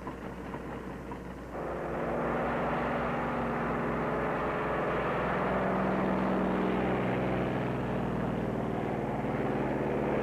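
Propeller aircraft engines running at high power. They cut in suddenly about a second and a half in, with several engine tones that shift in pitch.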